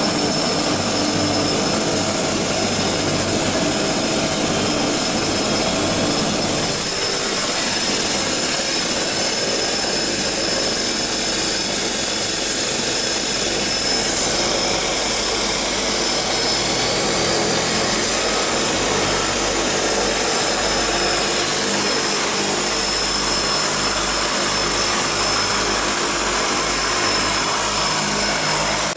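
De Havilland Canada DHC-6-300 Twin Otter's Pratt & Whitney PT6A turboprop engines running steadily with a high turbine whine, heard from inside the cabin.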